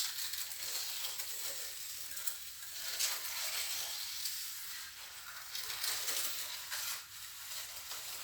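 Steel trowel scraping and spreading cement mortar on a wall, in repeated gritty strokes.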